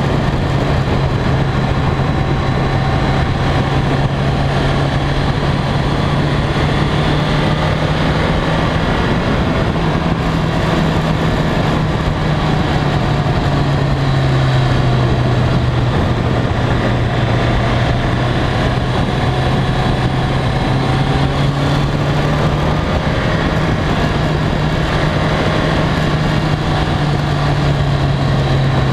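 BMW K1300R's inline-four engine running steadily at road speed, heard from on the bike, with wind rushing over the microphone. The engine note dips slightly about halfway through and rises again later.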